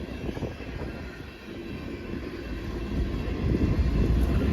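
CSX freight train passing at speed: a low rumble of wheels rolling on the rails, growing louder over the last couple of seconds.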